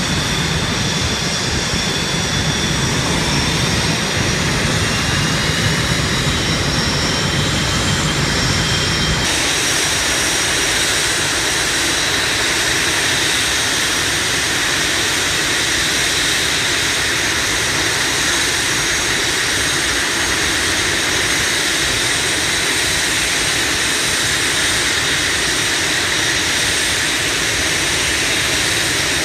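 Blue Angels F/A-18 Hornet jet engines running on the ground: a steady, loud roar with a high whine over it. About nine seconds in the sound changes abruptly to a fuller, closer roar as a single Hornet taxis.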